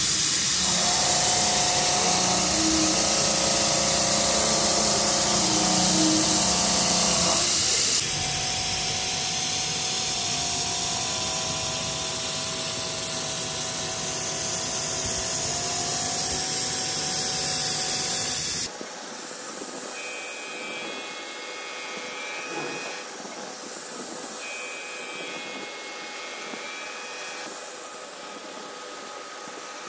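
Three-axis machining center milling a large metal part: a steady hiss with faint whining tones from the spindle and cutter. The sound changes abruptly about eight seconds in and drops quieter about two-thirds of the way through.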